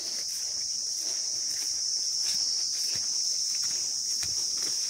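A steady, high-pitched insect chorus, with soft footsteps and rustling as legs brush through wet grass.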